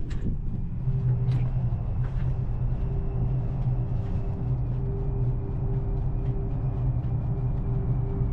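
Steady low drone of a large ferry's engines and machinery, with several held hum tones over a rumble, heard toward the ship's stern. A door latch clicks right at the start.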